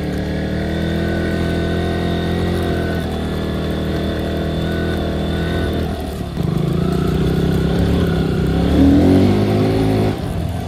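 Motorcycle engine running under throttle on a rough dirt trail, recorded close to the bike. The pitch holds steady at first, then about six seconds in it gets louder and the revs rise and fall, easing off near the end.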